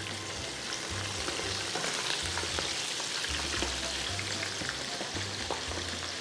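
Hot oil sizzling steadily in a wok, with many small crackles, as flour-coated crab pieces and shells deep-fry.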